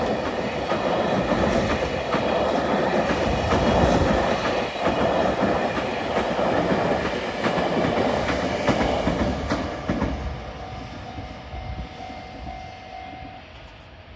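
Freight trains running past a level crossing: a steady rumble with the clickety-clack of wheels over rail joints. The sound fades away from about ten seconds in as the train moves off, and a faint steady tone sounds for about three seconds near the end.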